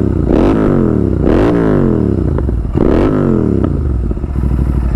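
Royal Enfield 650 parallel-twin engine, breathing through Red Rooster Performance aftermarket exhausts, revved in repeated sharp throttle blips about a second apart, the revs rising quickly and dropping back after each.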